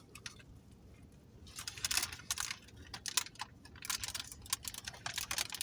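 Close-up sounds of eating a takeout taco: small, irregular crinkles and clicks of the wrapper and bites, starting about a second and a half in after a near-quiet moment.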